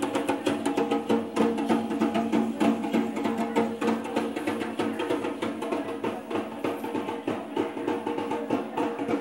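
Percussion music: fast, continuous drumming and rattling over a steady sustained tone.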